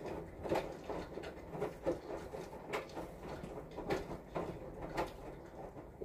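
A knife or spatula scraping and tapping as cream frosting is spread and smoothed over a layer cake, in irregular soft strokes about two a second.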